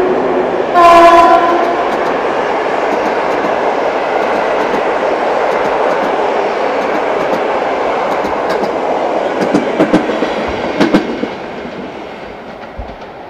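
EP09 electric locomotive gives a short horn blast about a second in, then its Intercity coaches pass through with a steady rush of wheels on rails. Sharp clacks over rail joints come near the end before the sound fades as the train moves away.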